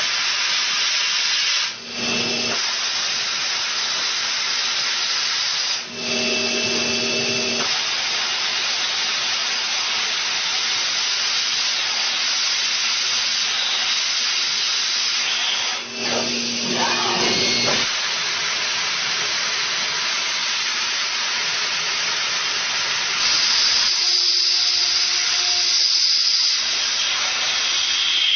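CNC machine cutting a metal gear: a steady hiss with a machine tone that comes and goes, briefly dropping away three times.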